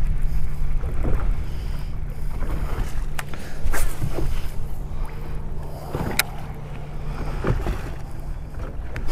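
Boat motor humming steadily under wind and water noise, with a few sharp clicks about three, four and six seconds in.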